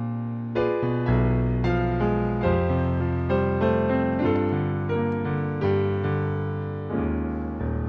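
A slow solo piano melody: a new note or chord about every half second to a second, each left to ring out.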